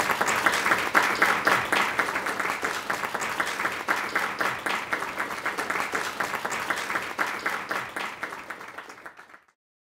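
Small audience applauding, a steady patter of many hands that thins and fades over the last few seconds before cutting off to silence near the end.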